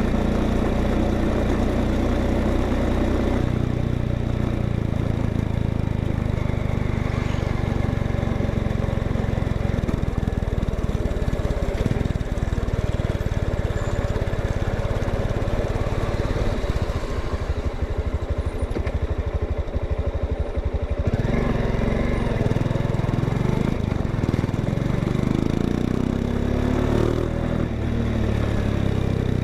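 Exhaust note of a Honda XRE 190's single-cylinder four-stroke engine running steadily, its pitch rising and falling several times in the second half as the revs change.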